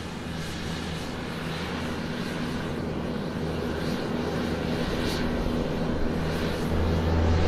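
Aircraft engine sound effect: a steady drone with a low hum under a rushing noise, growing steadily louder as the craft approaches.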